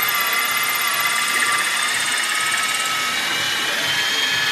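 Cordless drill running continuously at a steady whine, boring a hole in the underside of the engine's oil sump for the turbo's oil return.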